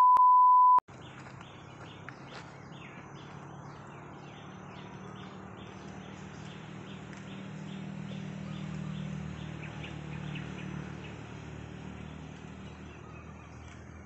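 A steady 1 kHz test-tone beep for about a second that cuts off suddenly, then forest ambience: short high chirps repeating about twice a second over a low steady hum.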